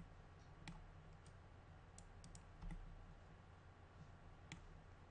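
Near silence with scattered faint clicks of a computer mouse over a low steady hum.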